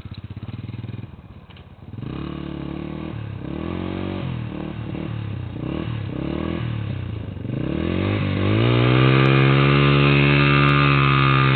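ATV engine idling, then revved up and down several times, then held at high revs for a few seconds before dropping off near the end, as in a wheel-spinning burnout on ice.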